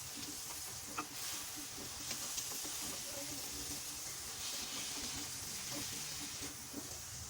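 Food frying in hot oil: a steady sizzle that swells and fades, with a few light clicks of a utensil against the pan.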